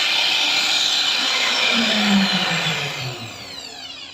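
CNC router spindle running at speed with a high whine, then spinning down about three seconds in, its pitch falling as it dies away.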